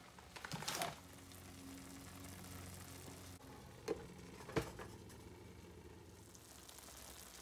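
Quiet kitchen room tone: a faint low hum with soft rustling early on and two short sharp taps, the louder about four and a half seconds in.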